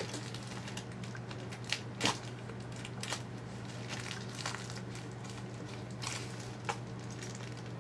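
Plastic toy packaging crinkling and clicking as a spinning-top toy is worked out of its box, with a few sharper clicks about two seconds in, over a steady low hum.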